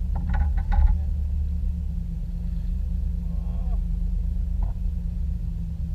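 A motor running steadily with a low rumble. A few short knocks come near the start, and a faint voice is heard briefly midway.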